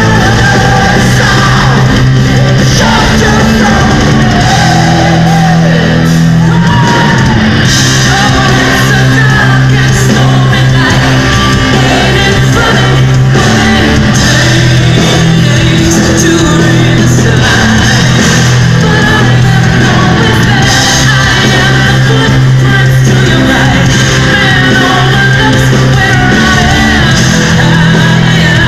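Power metal band playing live in a large hall: distorted electric guitars, bass, drums and keyboards under sung and shouted lead vocals. Very loud and dense, heard from within the audience.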